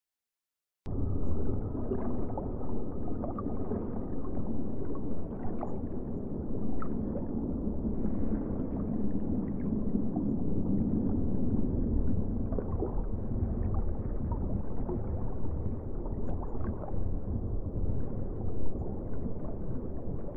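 Underwater bubbling ambience: a steady, dull wash of water and rising air bubbles with small clicks and gurgles scattered through it. It cuts in after a brief dead silence just under a second in.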